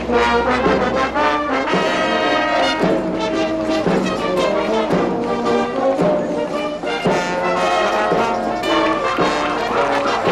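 Marching brass band playing a tune with trumpets and trombones over a steady beat.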